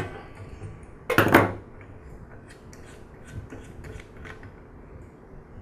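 Hand tool work on a Porter-Cable air compressor's pressure regulator: one sharp clatter about a second in as the adjustable wrench is worked off the regulator knob, then a run of light clicks and rattles as the knob is unscrewed by hand.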